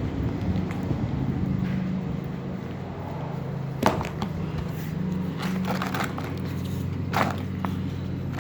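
A steady low engine hum, with a couple of sharp knocks and a few lighter clicks from handling.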